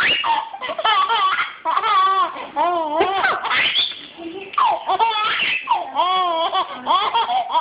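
A baby laughing in repeated high-pitched bouts, with short breaks for breath between them.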